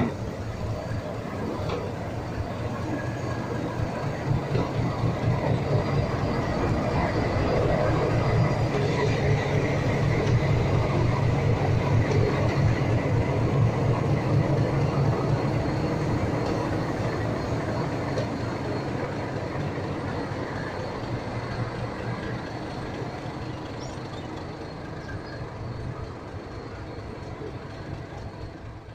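Diesel locomotive passing close by, a steady engine drone that swells to its loudest about halfway through and then fades as it moves away.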